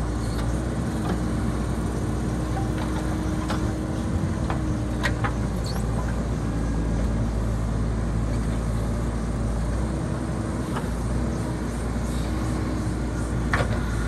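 Diesel engine of a JCB backhoe loader running steadily under work, with a few sharp knocks, the clearest about five seconds in and near the end.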